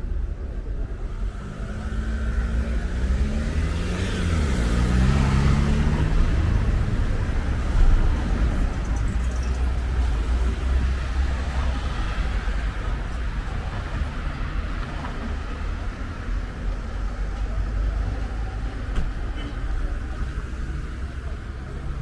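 Road traffic on a multi-lane city road, with cars passing one after another. The loudest vehicle goes by about four to six seconds in, its engine pitch shifting as it passes.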